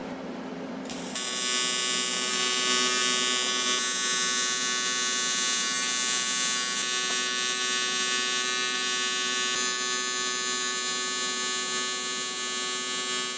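AC TIG welding arc on aluminum, struck about a second in and held as a steady buzzing hum while filler rod is fed to fill the gap in a corner joint. The welder is an Everest Powertig 200DV running on a 110 V outlet at about 125 amps.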